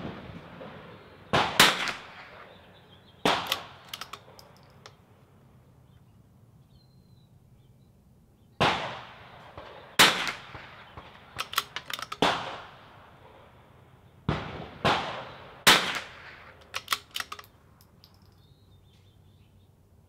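A CZ 455 .22LR bolt-action rifle being fired: about seven sharp cracks, several seconds apart, each with a short echo, with quieter clicks of the bolt being worked between some of them.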